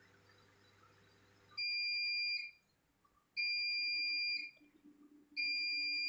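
End-of-cycle signal of a Bosch Serie 6 front-load washing machine: three long, steady, high beeps about two seconds apart, the first about a second and a half in. The beeps signal that the wash programme has finished.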